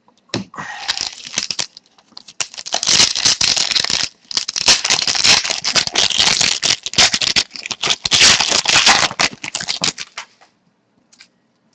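Hockey trading cards being flipped and slid against one another by hand: a dense run of quick card snaps and rustling that stops near the end.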